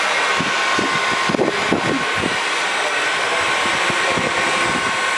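Industrial mixer grinder machine running steadily, a constant machine noise with a steady whine, with a brief patch of irregular low knocks about a second and a half in.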